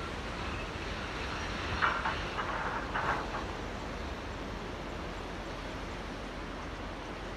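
Small waves lapping in a tidal channel: a steady wash of water, with a short cluster of louder, sharper splashes about two seconds in.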